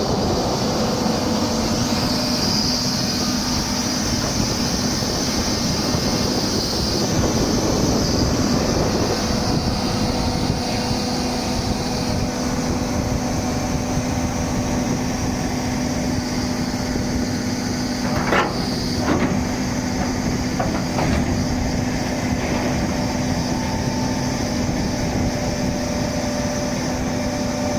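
Doosan 300LC-V excavator's diesel engine running steadily with a constant hum. A few sharp knocks come about two-thirds of the way through.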